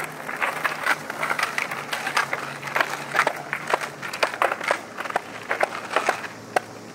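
Freestyle skateboards on asphalt: many irregular sharp clacks of tails and wheels striking the pavement during tricks, over wheels rolling on rough ground, with a faint steady low hum underneath.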